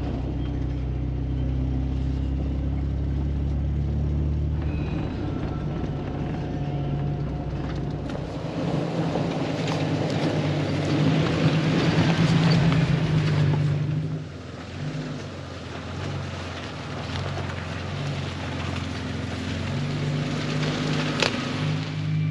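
Four-wheel drive running along a dirt forest track, its engine droning steadily. Tyre noise on the dirt and leaf litter rises as it comes close, loudest about halfway through, then drops off as it drives away, with a single sharp click near the end.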